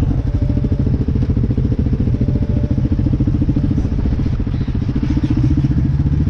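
Yamaha Raptor 660 quad's single-cylinder four-stroke engine idling steadily with an even, pulsing beat.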